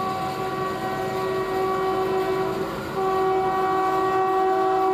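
Air horn of an approaching Indian Railways WAP-4 electric locomotive sounding two long chord blasts, the second one louder and starting about three seconds in, over the rumble of the train running on the rails.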